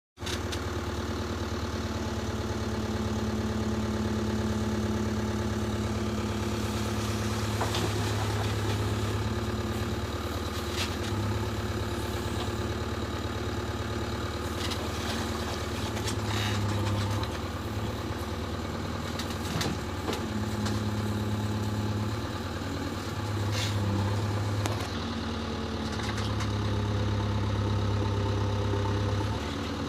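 JCB 3DX backhoe loader's diesel engine running continuously, its note swelling and easing as the hydraulics take load, with scattered short knocks.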